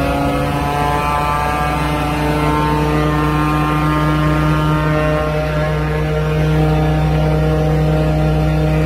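Truck engine running at low revs to drive the PTO water jetter's high-pressure pump, at its starting setting of about 15 litres a minute. Its pitch climbs slightly over the first few seconds, then holds steady.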